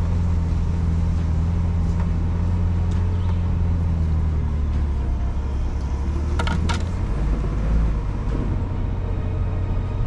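Ford Bronco driving slowly along a dirt trail: a steady low engine and drivetrain hum over a rumble, the hum fading out about halfway through, with a couple of sharp knocks at about six and a half seconds.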